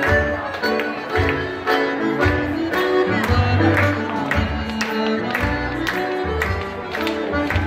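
Traditional Irish dance tune playing, with sharp taps of an Irish dancer's hard shoes on the wooden floor clicking over the music.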